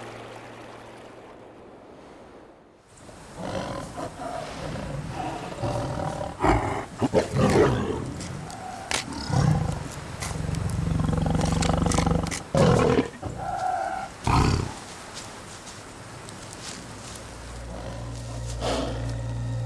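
Amur (Siberian) tiger roaring in a series of loud calls, starting about three seconds in and dying away by about fifteen seconds.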